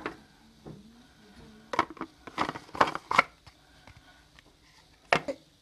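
Plastic grinder-jar lid clicking and knocking as it is fitted and twisted onto a small clear jar of herbs. A cluster of sharp clicks comes about two seconds in, with a single click near the end. No grinder motor is running.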